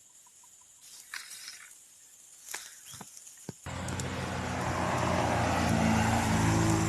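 A few faint clicks and knocks over near-quiet, then about three and a half seconds in a loud, steady engine sound starts abruptly and keeps running.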